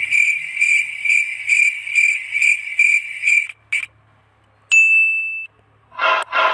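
Comedy sound-effect clips played back from a phone: a high chirping that pulses a little over twice a second for about three and a half seconds, then a short single beep about five seconds in, and a burst of other noise near the end.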